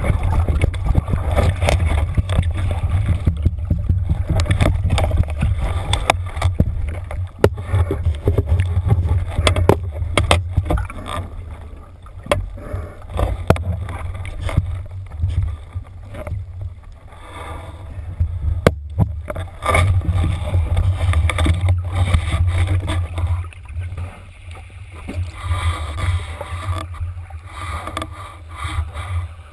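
Muffled underwater water noise heard through a waterproof camera housing while a speared wahoo struggles: a strong low rumble of churning water with frequent knocks and clicks. It is loudest for the first ten seconds or so, then eases and comes back in surges.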